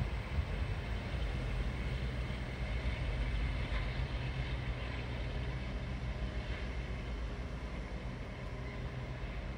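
Freight train hauled by a DB class 233 diesel locomotive pulling away: a steady low rumble of the wagons and engine that slowly fades as the train recedes.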